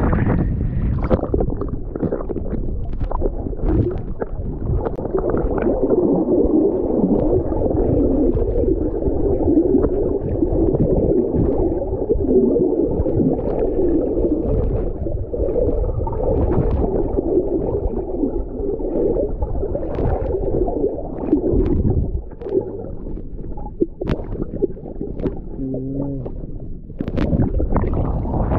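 Muffled gurgling and sloshing of water around a submerged camera, dull and cut off above the low range, with scattered short knocks.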